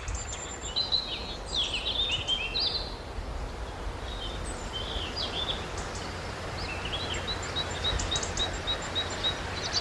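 Small songbirds singing: scattered warbling chirps, then a quick run of short repeated high notes, about five a second, near the end. Beneath them runs a steady low rumble of outdoor background noise.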